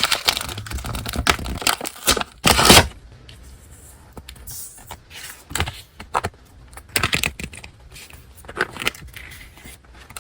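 Paper and packaging being handled and unwrapped by hand: irregular rustling, crinkling and light clicks, with a louder rustle lasting about half a second roughly two and a half seconds in.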